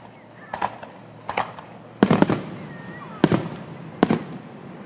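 Fireworks going off: a string of sharp bangs roughly a second apart, with a quick cluster of several bangs about two seconds in.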